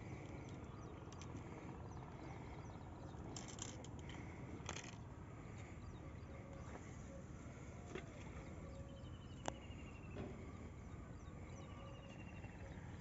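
Quiet outdoor ambience with a steady low rumble of wind and a few sharp clicks, and twice a short descending trill of rapid notes from a bird, about nine seconds in and again near the end.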